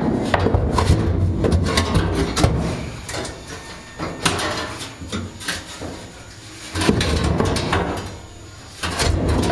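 Repeated knocks and clatter over a low rumble, busiest in the first few seconds and again near the end: handling noise from work in the workshop.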